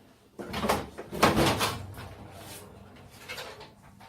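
Two short scraping knocks from the plastic casing of a CRT television being handled and pulled apart, the first about half a second in and the louder one about a second later, each fading out quickly.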